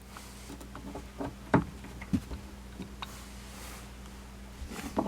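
A low steady hum with a few scattered soft clicks and knocks, and a short louder knock near the end.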